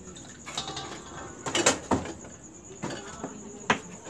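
Small metal frying pans knocking and clattering against the stove's burner grates as they are handled and shifted, several sharp knocks spread through the clip. Behind them runs the steady high trill of crickets.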